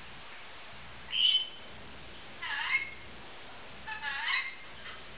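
Pet lorikeet calling: a short high whistle about a second in, then two longer warbling calls whose pitch glides up and down.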